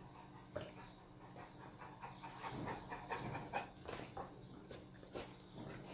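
A dog panting, faint and uneven.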